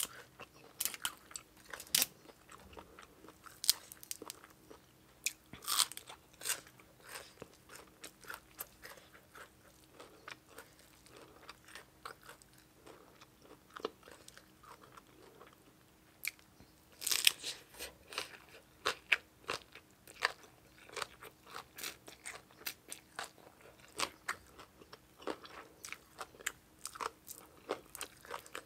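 A person chewing and crunching crisp raw vegetables and papaya salad: a steady run of short, crisp crunches and wet chewing, with a louder flurry of bites a little past the middle.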